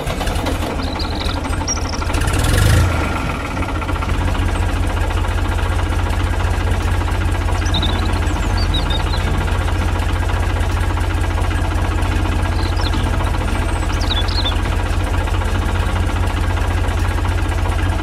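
Tractor engine running steadily with a fast, even chugging beat, swelling louder about two to three seconds in and then settling. Faint bird chirps come and go high above it.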